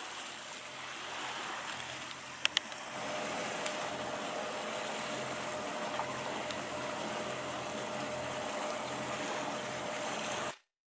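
A sailing yacht under motor on a calm sea: water rushing along the hull with wind on the microphone over a steady engine hum. Two sharp clicks come about two and a half seconds in, and the sound cuts off suddenly just before the end.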